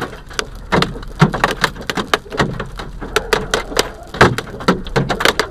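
Hailstones striking a car's windshield and body: sharp, irregular knocks several times a second, some much louder than others.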